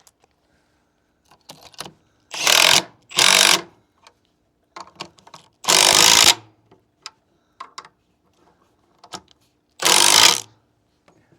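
A 9/16 socket ratchet tightening the leg bolts of a wooden cider press. It runs in four short bursts of rapid clicking, about half a second each, with scattered knocks and clicks between them.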